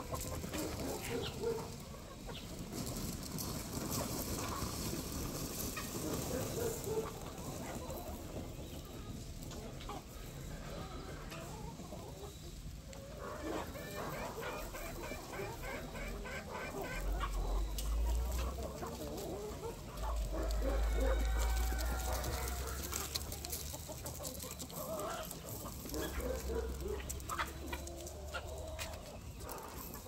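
A flock of free-range chickens clucking and calling, many short calls overlapping. Bursts of low rumble come and go in the second half.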